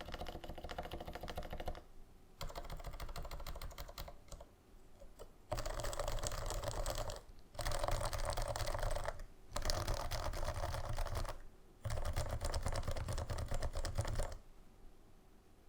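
Silenced Norbauer Norbaforce Mk. III Topre keyboard (stock 45g domes, Deskeys #3 silencing rings) being typed on in quick runs of keystrokes. There are about six runs with short pauses between them, and the typing stops near the end.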